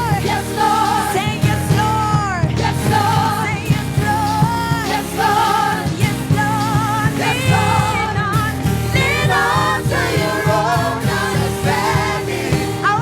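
Worship music from a church service: singers with a band, a steady beat under sung melody lines.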